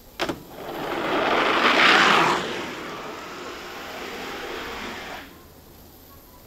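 Ski jumper's skis sliding down the grooved in-run track of a summer ski jump, just after a sharp knock as the jumper leaves the start bar. The sliding hiss rises to its loudest about two seconds in, eases, and stops suddenly about five seconds in as the jumper takes off.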